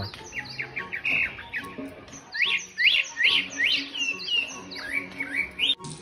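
Pet parrot chirping: a run of short, quick rising chirps, about two to three a second, growing louder about halfway through.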